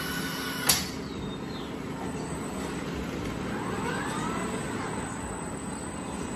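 Industrial rice-bag palletizing robot at work: a short, sharp hiss of compressed air about a second in as the pneumatic gripper actuates, over a steady machinery hum. Midway a faint whine rises and falls as the arm swings the bag over to the pallet.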